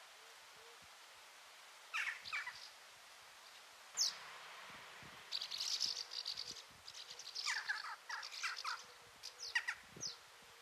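Several wild birds calling: short calls, a quick falling whistle about four seconds in, and runs of high twittering in the middle and near the end.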